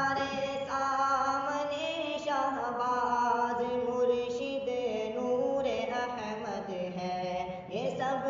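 A male voice singing a wordless melody unaccompanied, in long held notes that step from one pitch to the next, as the vocal interlude between verses of an Urdu farewell tarana. There is a short break near the end before a new phrase begins.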